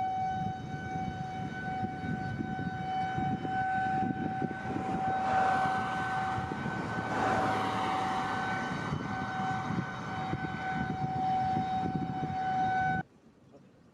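Outdoor tornado warning siren sounding a steady tone that swells and fades, over a rumble of wind and rain noise. It cuts off suddenly near the end.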